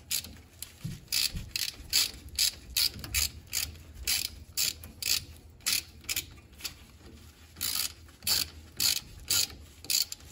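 Hand ratchet wrench tightening a bolt on the rear differential cover, its pawl clicking on each back-stroke in a run of about two or three strokes a second, with a short pause about seven seconds in.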